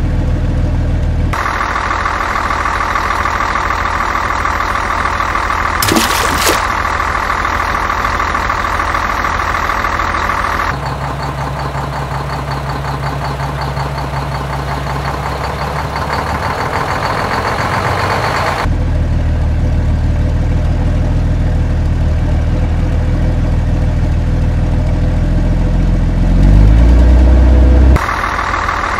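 Dubbed-in truck engine sound effects, running and idling in sections that change abruptly from one to the next. There is a short sharp sound about six seconds in, and a rising rev near the end.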